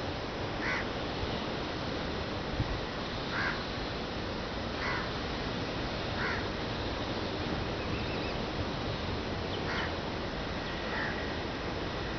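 Crows cawing, about six short, single caws spaced irregularly, over a steady rushing background noise.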